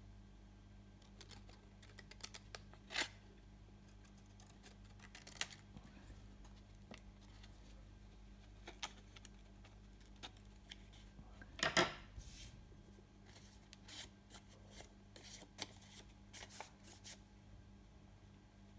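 Paper being handled and creased while folding a paper airplane: scattered short crackles and rustles, with a louder crinkle about twelve seconds in.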